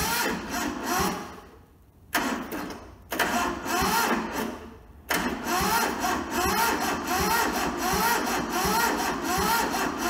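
The diesel engine of a Toyota SDK4 skid steer is turned over by its starter motor in four bursts, the last and longest about five seconds. The cranking has an even chug of about two beats a second, and the engine does not catch even though it has been given ether. The battery is starting to go flat.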